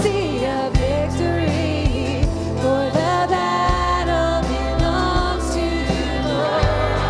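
Contemporary worship song played by a band, with a singer's melody sliding over a steady bass and regular drum hits.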